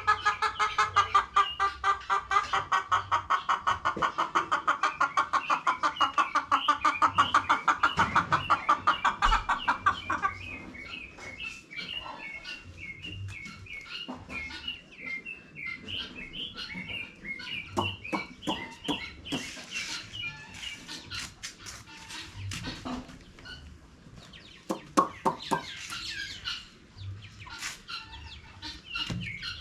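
Chickens clucking in a fast, loud run of about five calls a second, which stops about ten seconds in. Quieter, higher chirping and occasional clucks follow.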